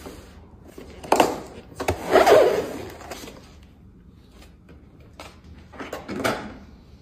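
Laptop unboxing handling noises: a knock about a second in, then a longer scraping rustle of packaging, a sharp click, and another rustle near the end.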